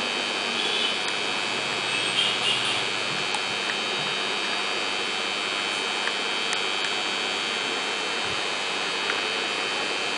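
Steady hiss and hum of a running aquarium filter, with a few faint high chirps about two seconds in and a handful of light clicks.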